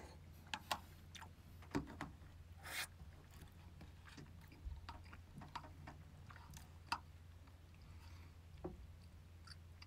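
Quiet eating sounds: scattered sharp clicks of a spoon and chopsticks against plastic takeaway bowls, with soft chewing, over a low steady hum.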